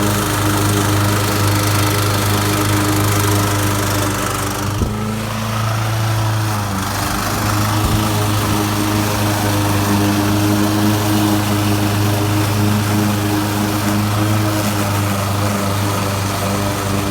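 The Kawasaki 179cc engine of a Toro commercial walk-behind mower, running steadily while mowing grass. A single sharp knock comes about five seconds in, and the sound dips briefly after it.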